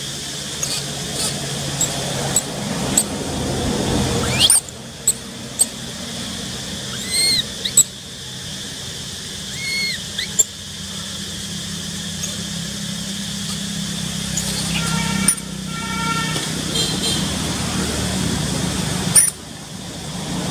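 Baby long-tailed macaque squeaking: several short, high, arching squeaks in the first half, then a longer pitched call about three-quarters of the way through, over a steady high-pitched background hum.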